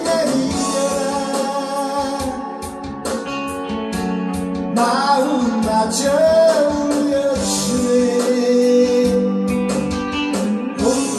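A man singing a slow Korean ballad into a microphone to electric guitar and backing accompaniment, with long held notes.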